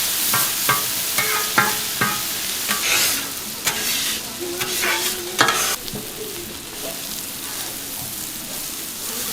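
Food frying and sizzling on a griddle, with a string of sharp clicks and scrapes over the first half, the loudest about five seconds in.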